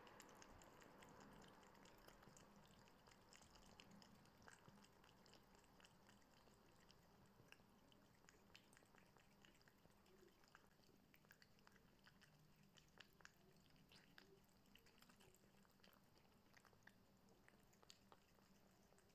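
Two cats chewing and licking chunks of wet tuna from a plate: faint, quick smacking clicks.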